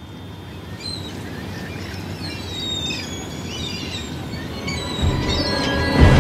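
Wind rushing steadily and growing louder, with a flock of birds calling in short chirping cries over it. About five seconds in a deep rumble swells, and a sharp hit lands near the end.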